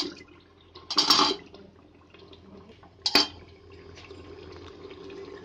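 Fried taro (arbi) pieces tipped into wet masala gravy in an aluminium pressure cooker: a loud wet splash about a second in, then a sharp clink of the metal spatula against the cooker about three seconds in, followed by faint wet stirring in the gravy.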